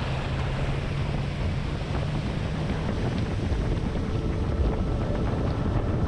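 Wind buffeting the microphone: a steady, low, noisy rush.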